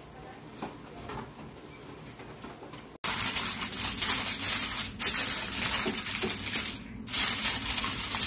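Aluminium foil crinkling and rustling loudly and irregularly as hands press and fold it around the rim of a dish, starting about three seconds in after a quieter stretch.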